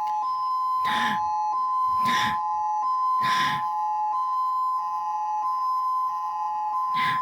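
Emergency Alert System two-tone attention signal sounding steadily. Three short buzzy bursts about a second apart come over it in the first few seconds, and another comes near the end.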